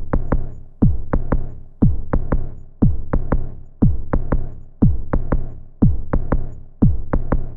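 Electronic background music: a deep kick drum with a falling pitch about once a second, with short clicking percussion hits in between.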